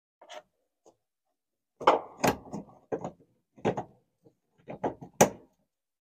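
Handling noise in a stripped race-car cockpit: a scatter of sharp knocks and clicks, the loudest about two seconds in and again near the end, as cable connectors are worked at the dash and the person shifts out of the seat.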